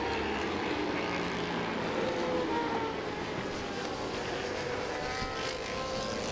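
A field of racing motorcycles running at speed, their many engines blending into a steady drone with pitches rising and falling as the riders accelerate and shift.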